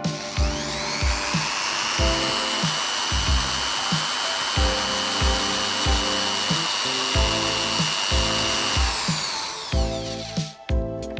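A handheld power tool's motor spins up to a steady high whine and runs for about nine seconds, then winds down near the end. Background music with a steady beat plays underneath.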